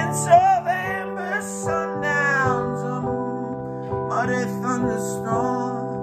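Piano playing held chords with a solo voice singing a slow, wavering melody over them, the voice dropping out for about a second in the middle.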